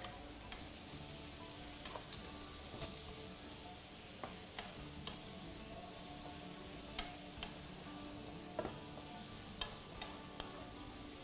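Chopped onion, pepper, mushroom and pistachio filling sizzling in oil in a pan. A spoon clicks and scrapes against the pan at irregular moments as it is stirred.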